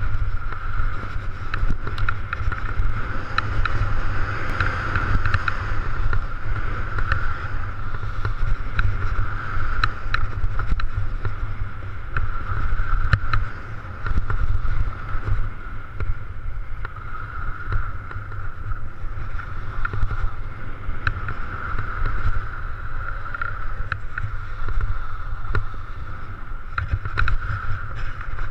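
Wind rushing and buffeting over a helmet camera's microphone while skiing downhill, over a steady hiss of skis sliding on snow, with scattered small clicks and knocks.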